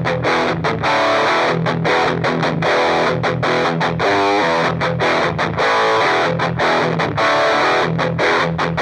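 2013 Gibson SG Future electric guitar on its bridge pickup, played through an overdrive pedal into a Marshall Origin 50 valve amp. It plays a riff of distorted rock chords broken by short, choppy stops.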